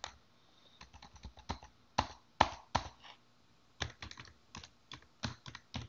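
Typing on a computer keyboard: a run of irregular keystrokes, a few of them louder than the rest.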